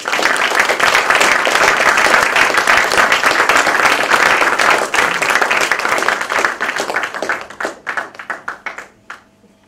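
Audience applauding, starting all at once and thinning to scattered separate claps before dying away near the end.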